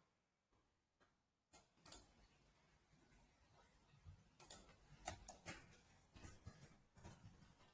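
Faint computer keyboard keystrokes and mouse clicks: a few scattered sharp ticks, coming closer together in the second half.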